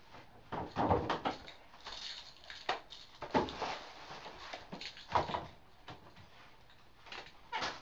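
Irregular short rustles and knocks from a person moving about close to the microphone in a small room, with quieter gaps between them.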